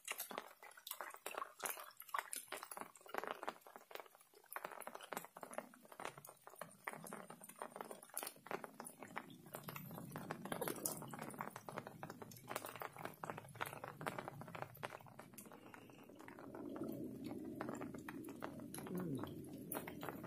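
Light drizzle: many irregular ticks of raindrops striking close to the microphone. In the second half a low murmuring voice joins in.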